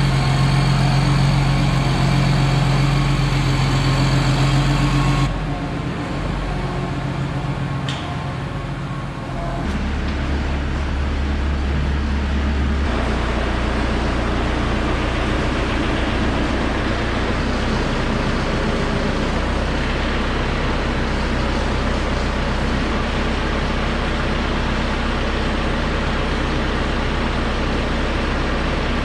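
Heavy farm-machinery engine running steadily. Its note changes about five seconds in and settles into a steady low hum from about ten seconds on.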